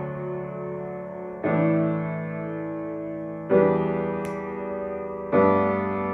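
Upright piano played solo: a slow progression of chords, a new one struck about every two seconds, three in all, each left ringing and fading.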